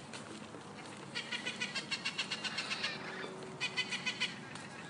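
An animal calling in two runs of rapid, high, evenly repeated chirping pulses, the first about a second in and the second near the end.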